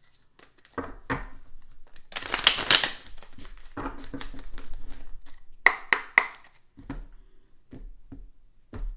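Tarot cards being shuffled by hand: papery rustling with a dense, loud burst about two seconds in and a few sharp snaps of cards around six seconds in.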